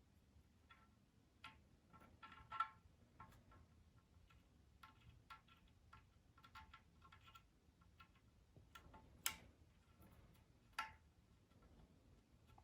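Faint, scattered light clicks and taps of small tools and parts being handled. Three sharper clicks stand out, one early and two in the second half.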